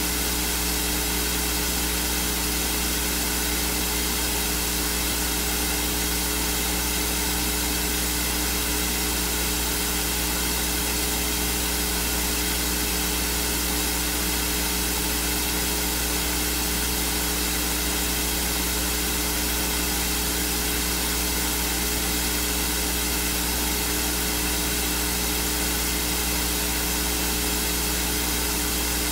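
Steady electrical hum with a few low overtones under a constant hiss, unchanging throughout; no voice comes through.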